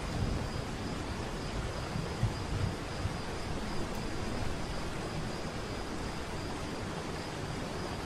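Waterfall rushing: a steady wash of falling water, with a few low rumbling swells in the first three seconds. A faint steady high tone runs above it.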